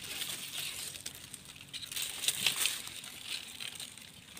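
Dry grass stalks and leaf litter rustling and crackling in irregular spurts as the brush is pushed aside by hand.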